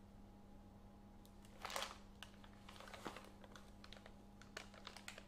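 Faint crinkling and rustling of a plastic piping bag being squeezed, with a brief louder rustle about two seconds in and scattered small clicks, over a low steady hum.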